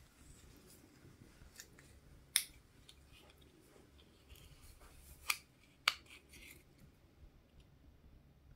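Hands opening toy packaging: three sharp clicks, about two and a half, five and a quarter and six seconds in, with fainter ticks and a short rustle between them.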